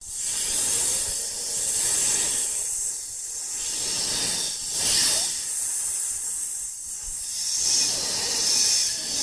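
Giant prehistoric snake (titanoboa) creature effect hissing: a loud, breathy hiss that starts abruptly and swells and fades in several long waves.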